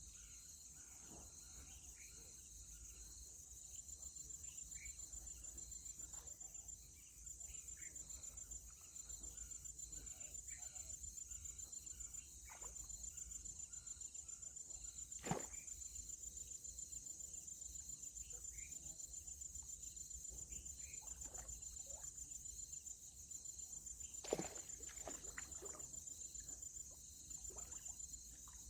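Insects trilling in a steady, high, rapidly pulsing drone. Two sharp clicks or knocks stand out, about halfway through and again near the end.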